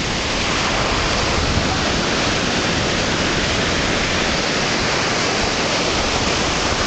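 Steady, loud rushing of ocean surf and wind, with no breaks.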